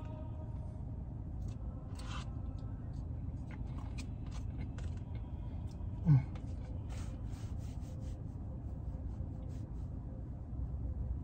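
Small clicks and scrapes of a spoon working in a paper dessert cup, over a steady low rumble inside a car's cabin. About six seconds in comes one brief, loud, low vocal sound from the eater, rising in pitch.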